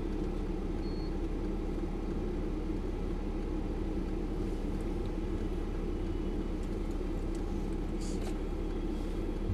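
Steady low rumble of a Mercedes-Benz GL-Class SUV standing at idle, heard inside the cabin. A few faint clicks come about eight seconds in.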